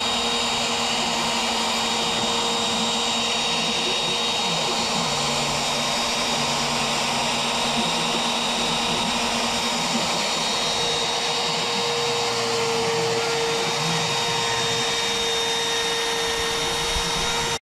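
Piranha CNC router's spindle whining steadily as its end mill cuts through PVC trim board. The sound cuts off suddenly near the end.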